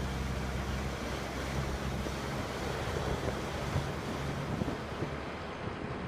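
Mack Superliner road train's diesel engine running steadily as the truck drives through a flooded river causeway, with water splashing at the wheels and wind buffeting the microphone. About five seconds in, the engine's hum fades and wind and rushing water remain.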